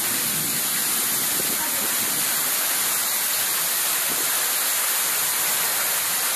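Heavy rain: a steady hiss of a downpour falling and splashing on a wet concrete driveway.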